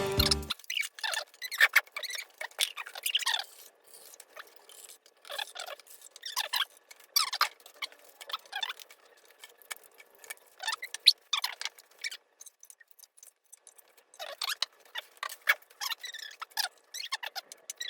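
A series of short, high squeaks and light scrapes at an irregular pace, with a pause of about a second and a half near the two-thirds mark.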